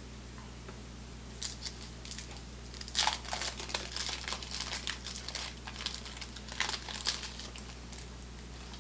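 Paper wrapper of a baseball card pack being torn open and crinkled by hand: a run of sharp crackles starting about a second and a half in, loudest around three seconds in, dying away about a second before the end.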